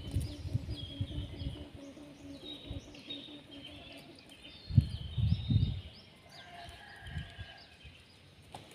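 A kite's dăng hummer droning steadily on a low note, fading out about three seconds in, while small birds chirp throughout. Low rumbling thumps come about five seconds in.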